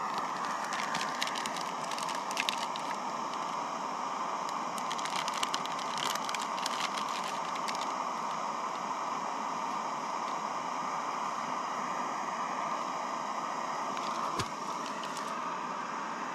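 Canister camp stove burning with a steady roar under a pot of water at the boil, with light clicks and clinks as the pot and a steel mug are handled. About fourteen seconds in, a click and the roar drops slightly.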